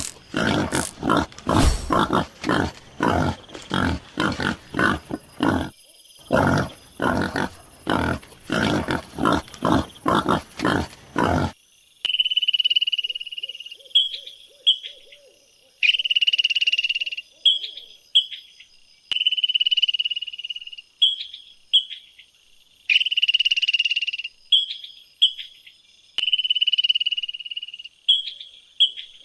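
Animal calls: a long run of rapid, harsh, croaking pulses, then after a cut a repeated high whistled call, each a long held note followed by a few short chirps.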